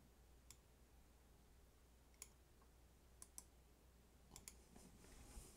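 Faint computer mouse clicks, about six spaced unevenly, some in quick pairs, over a low steady hum.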